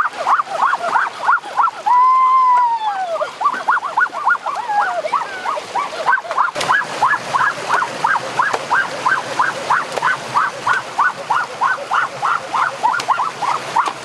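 A fast, steady run of short repeated chirping calls, about four a second, over rushing stream water and splashing. About two seconds in, one long call rises and then falls in pitch.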